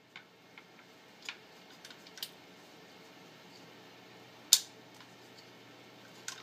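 Handling clicks and knocks from an AR-15 pistol being turned over in the hands: several light clicks early on, then one sharp click about four and a half seconds in and another at the end.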